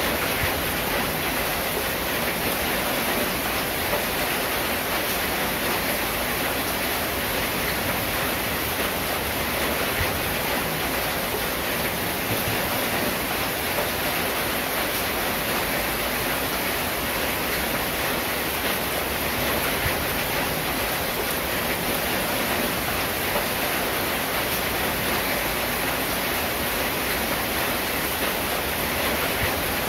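Steady rain falling on a corrugated zinc (tin) roof, a dense, even patter and hiss with no thunder or single knocks.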